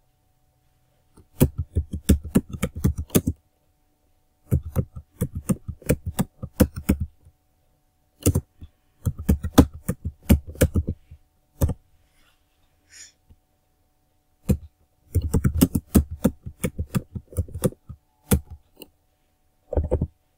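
Typing on a computer keyboard: quick runs of keystrokes in five or six bursts, with pauses of a second or so between them and a few single key presses.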